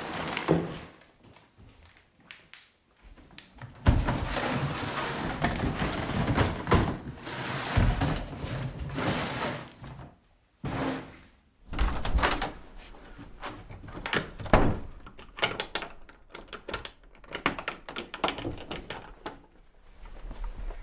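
A run of thuds and knocks from a door being handled, with rattling noise in between.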